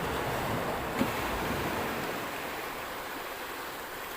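Sea waves washing onto the beach, a steady rushing that eases a little toward the end, with a single short knock about a second in.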